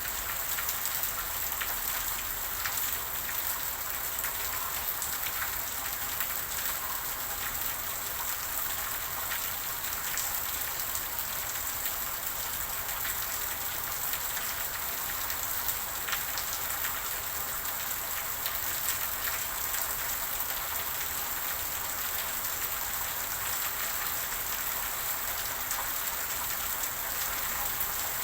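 Steady rain falling, a dense patter of many small drops hitting a surface.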